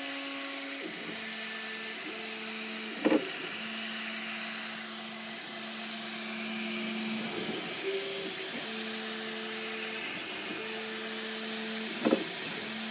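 MakerBot Replicator 2 3D printer's stepper motors whining in steady tones that jump from pitch to pitch as the print head makes one move after another. Two sharp knocks come about three seconds in and again near the end. These are the crunching the owner takes for the axes slipping or going too far, which leaves the print off alignment.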